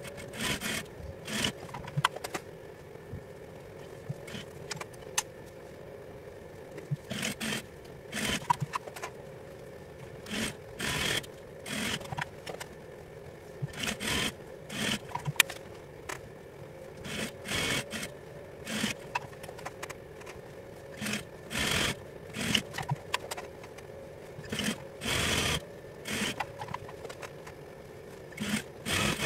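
Juki industrial sewing machine stitching in short runs of about a second each, stopping and starting over and over, with a steady low hum underneath.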